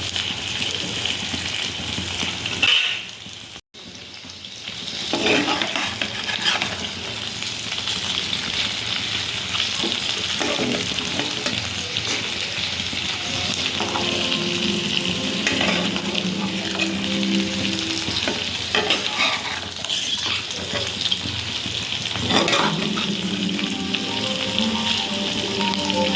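Crab curry sizzling as it fries in a pan and is stirred, with scraping strokes of the spoon against the pan now and then. The sizzle drops away briefly about three seconds in.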